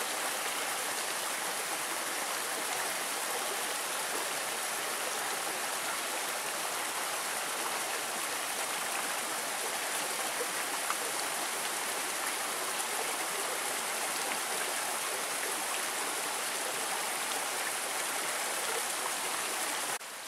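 The Mossman River's rainforest creek rushing steadily over boulders and into a clear rock pool, an even hiss of flowing water. It drops off suddenly right at the end.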